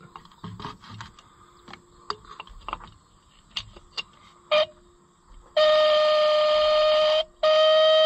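Original-style electric disc horn of a Fiat tractor, worked with a screwdriver at its center screw. A few light clicks and scrapes, a brief blip about halfway through, then a loud, steady, buzzy single-pitched tone that sounds like a dying unicorn. It breaks off for a moment near the end and comes on again. The horn is not yet sounding properly.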